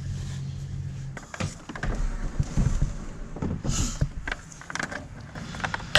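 Low-voltage electrical wires being pulled and fed through a drilled hole, with irregular scraping, rubbing and clicking. A low steady hum fades out about a second in.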